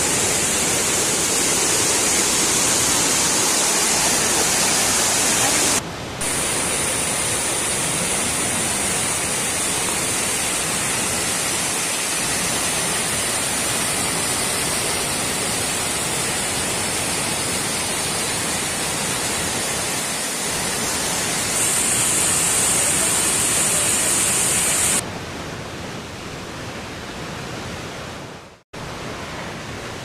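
Water of a waterfall and stream rushing and splashing over rocks: a steady, loud wash of noise. It changes abruptly a few times, drops out for a moment about six seconds in, turns quieter about 25 seconds in, and cuts out briefly near the end.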